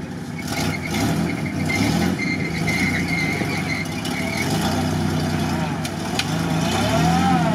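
Toyota 4Runner's engine working in deep mud, its revs rising and falling several times as the driver backs up, with a thin high whine over it for the first few seconds.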